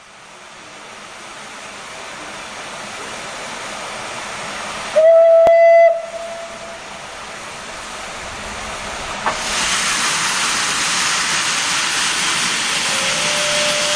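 Steam locomotive: a hiss of steam building up, one steady whistle blast lasting about a second starting about five seconds in, then louder steam hiss from about nine seconds on.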